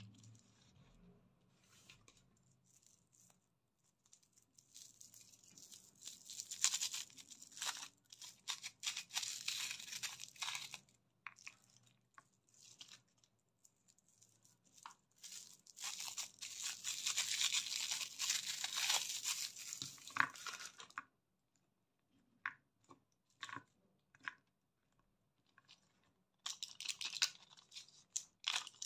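Plastic Chupa Chups lollipop wrappers crinkling and tearing under the fingers as they are unwrapped, in two long spells of crackling. Then come a few scattered small clicks, and crinkling again near the end as a plastic blister strip of gumballs is handled.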